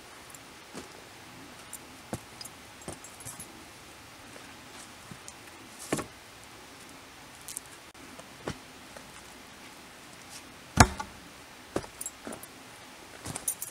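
Scattered wooden knocks and rustles from the log poles of a raised bushcraft bed being handled and knelt on, with light jingles of keys at a belt; one sharp knock late on is the loudest.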